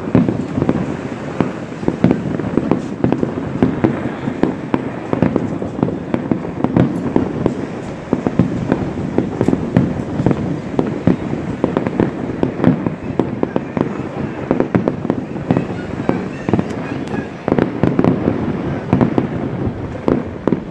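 Aerial fireworks display: shells bursting in a rapid, continuous barrage of bangs and crackles over a constant low rumble.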